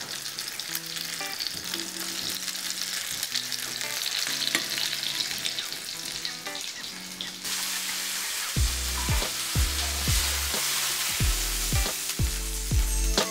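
Crumbed garfish fillets frying in hot oil in a pan, sizzling steadily. Background music plays underneath, and a heavy bass beat comes in about two-thirds of the way through.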